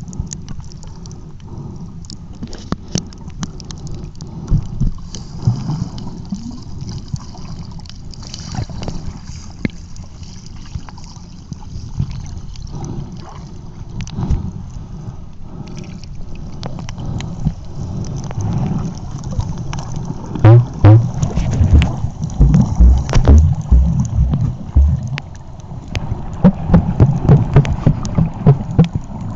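Sea water sloshing and lapping, with wind rumbling on the microphone. The wind thumps grow loud and gusty in the last third.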